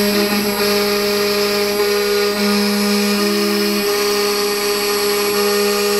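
3Dtek Heavy Mill CNC router running, its spindle driving a V-bit as it engraves lettering into a wooden board. It makes a steady whine, with lower tones that jump to a new pitch every second or so as the machine's axes move.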